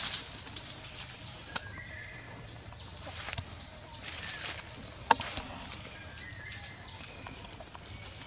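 Forest ambience: a steady high-pitched buzz with repeated short chirping calls, and two sharp taps, one about a second and a half in and a louder one about five seconds in.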